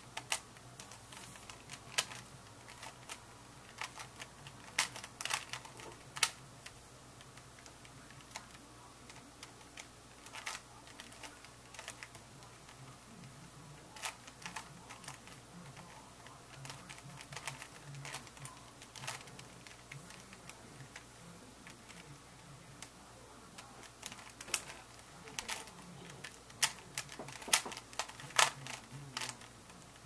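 Plastic Rubik's Cube layers being turned by hand: irregular clicks and clacks as the faces snap round, in quick runs with quieter stretches between, busiest about five seconds in and near the end.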